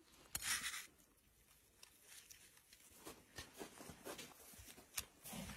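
Faint handling sounds of gloved hands working dry-rubbed pork slices: a short hissing rustle about half a second in, then scattered light taps and clicks.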